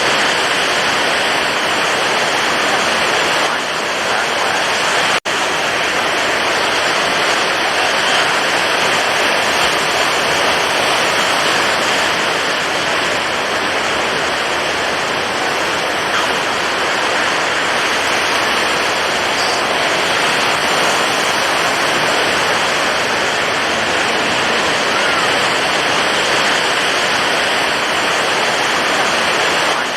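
Stormy ocean surf: high waves breaking in a loud, steady wash of water noise. The sound cuts out for an instant a little over five seconds in.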